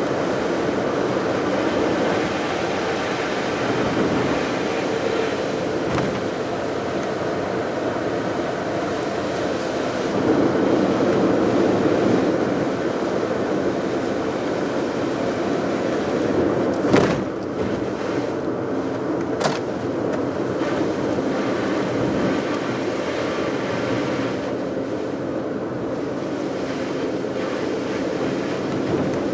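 Car driving steadily along a road: continuous engine and tyre noise, with two short knocks a little past the middle.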